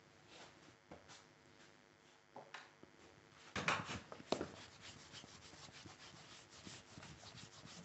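Whiteboard duster being wiped across a marker board: faint rubbing, a louder scrape about halfway through, then quick back-and-forth strokes.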